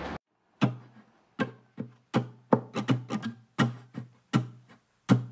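Music: the intro of a song, single plucked-string notes one after another, each ringing out and fading before the next, with short gaps between.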